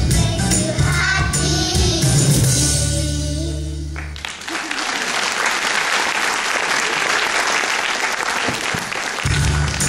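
Children singing a song over backing music, which ends about four seconds in, followed by the audience applauding for about five seconds. Music starts again just before the end.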